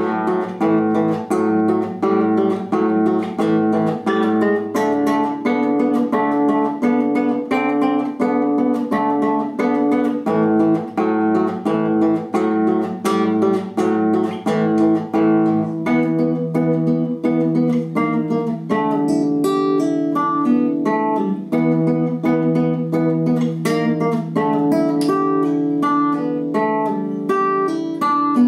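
Nylon-string classical guitar played solo with the fingers: a quick, steady run of plucked melody notes over a bass line.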